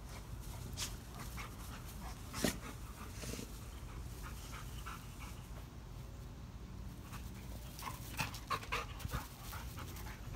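Black Labrador Retrievers panting, with scattered short sharp sounds: the loudest about two and a half seconds in, and a run of them near the end.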